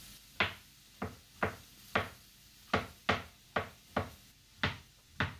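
Chef's knife slicing button mushrooms on a plastic cutting board: about ten sharp knocks of the blade meeting the board, roughly two a second in an uneven rhythm.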